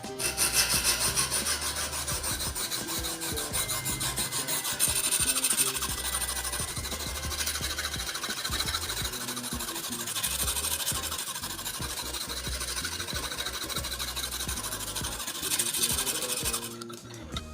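A knife blade being sharpened with fast, continuous scraping strokes against a sharpening tool, giving a steady rasping sound. It starts abruptly and stops shortly before the end.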